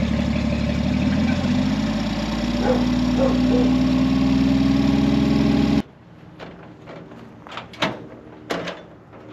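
Engine of a 1949 White Super tow truck running steadily, its pitch rising a little about two seconds in, then stopping abruptly about six seconds in. A few sharp knocks and clicks follow.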